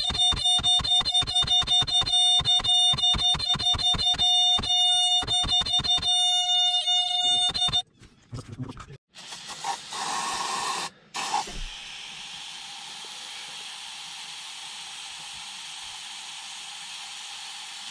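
Distorted electric-guitar music with a fast, even beat, cutting off abruptly about eight seconds in. Then an aerosol spray can hisses, first in short spurts and then in one long, steady spray.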